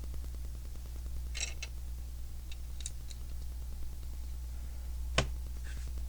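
Small plastic clicks and ticks of Lego pieces being handled and fitted, with one sharper click about five seconds in, over a steady low hum.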